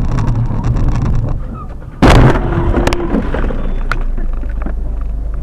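Steady vehicle rumble, then a sudden loud crash about two seconds in, typical of a car collision, with the rumble going on after it.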